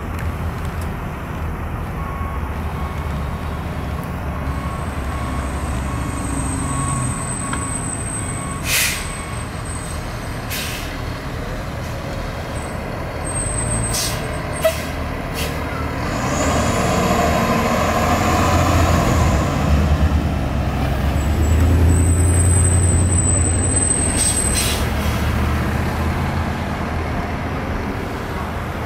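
Spartan fire engine's diesel engine running as the truck pulls out and turns, getting louder about halfway through as it passes close. Several short, sharp air-brake hisses are heard along the way.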